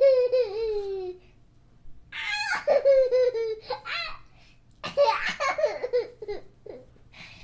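Very high-pitched laughter sound effect in three bursts, each sliding down in pitch.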